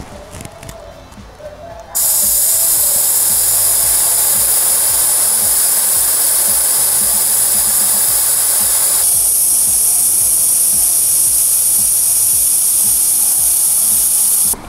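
Air hissing steadily out of a car tyre's Schrader valve as its core is held down with a small screwdriver to let the tyre down. The hiss starts about two seconds in, turns thinner and higher a little past halfway, and cuts off abruptly near the end.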